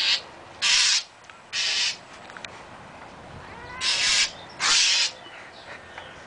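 A bird giving a series of harsh, raspy squawks: three within the first two seconds, then two more around four seconds in. These are alarm or scolding calls at a cat near its nest.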